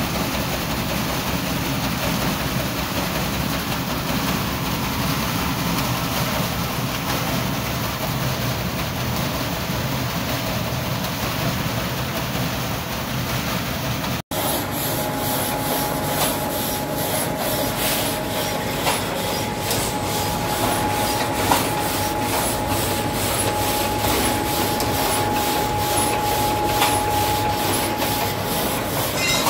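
Three-deck vibrating sieve running, a steady rattling hiss of grain shaking across its screens. After a cut partway through, a steady whine and a faint even ticking join it.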